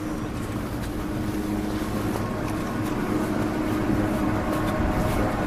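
Chairlift machinery running: a steady mechanical hum with a low drone underneath.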